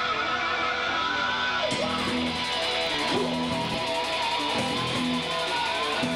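Live rock band playing loud: an electric guitar holds long, wavering lead notes over bass notes and drums, with cymbals coming in about two seconds in.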